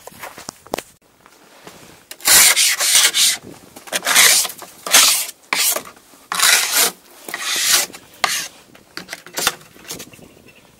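A run of loud, rough rubbing and scraping strokes, one every second or so, starting about two seconds in, as the skis are handled.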